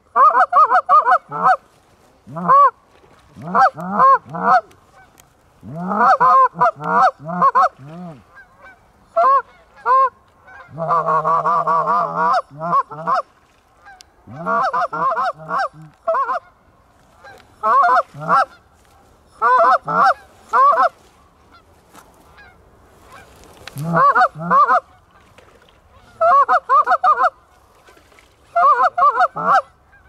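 Hand-blown Canada goose calls sounding loud, close honks and clucks in quick runs of a few notes every second or two, with one long drawn-out note about eleven seconds in. This is hunters calling to a passing flock of geese to turn it toward the decoys.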